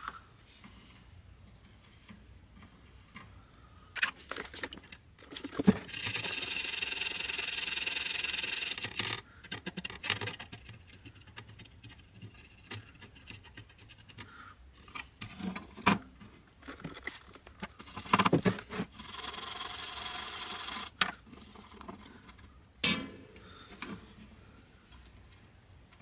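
Small tools and parts being handled during circuit-board repair work: scattered clicks and taps, with two steady hissing bursts of about three seconds each, about six seconds in and again about eighteen seconds in.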